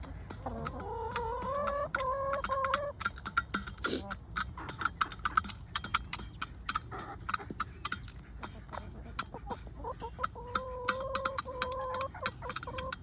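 Chickens at a treat: a hen gives a long drawn-out call twice, near the start and again near the end, with a rapid run of sharp taps of beaks pecking at the food in between.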